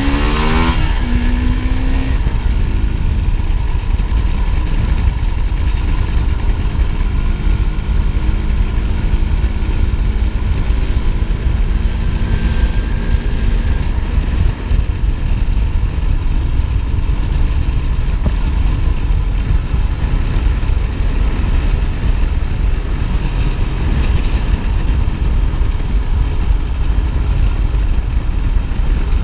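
1988 MZ ETZ 250's single-cylinder two-stroke engine under way, heard onboard: its pitch climbs and breaks off about a second in as it shifts up, then it runs steadily at cruising speed. A heavy low wind rumble on the chest-mounted camera lies under it throughout.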